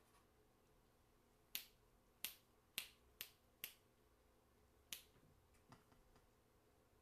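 Six sharp taps over a quiet room: five in quick, uneven succession, then one more about a second later.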